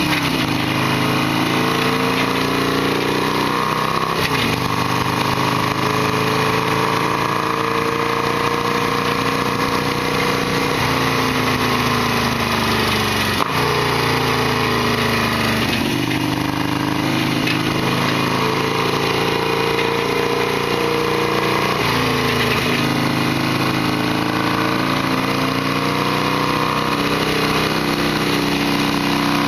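Harley-Davidson Sportster XL1200R's air-cooled V-twin running while ridden, its pitch climbing steadily and then dropping back sharply every few seconds as the throttle and gears change.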